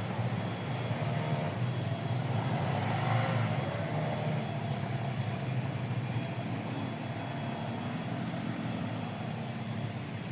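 A small engine running steadily at an even speed, with a low hum.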